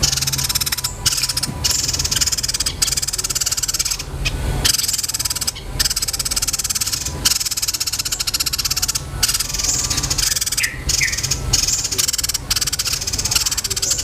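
A small songbird singing harsh, fast rolling trills, high-pitched and nearly continuous with short breaks, in the manner of fighting Eurasian tree sparrows. A steady low hum runs underneath.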